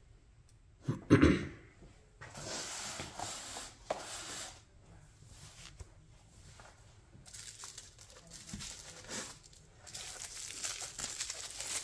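Packaging crinkling and tearing as model parts are unpacked from the box, with one short, loud bump about a second in.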